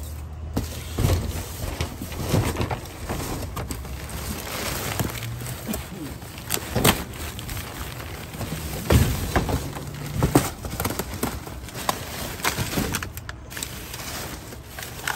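Plastic trash bags and cardboard boxes rustling and crinkling as a gloved hand rummages through rubbish in a dumpster, with irregular bumps and knocks.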